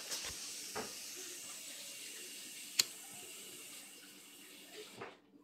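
Water running steadily from a tap, shut off abruptly about five seconds in. A single sharp click sounds about halfway through.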